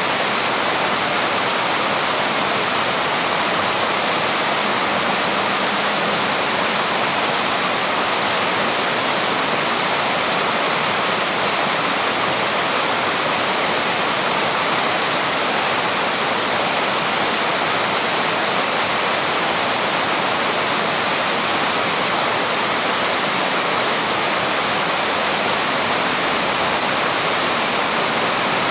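Small waterfall: water pouring and splashing over rocks with a steady rushing hiss.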